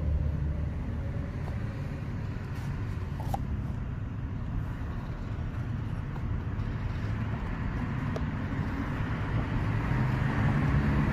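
Steady low rumble of road traffic, growing louder toward the end, with a coin scraping the latex off a scratch-off lottery ticket.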